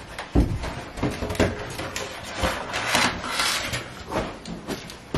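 Handling noise as a bunch of foil and latex balloons is squeezed through a doorway: a thump about half a second in, scattered knocks, and a crinkly rustle of foil rubbing a few seconds in.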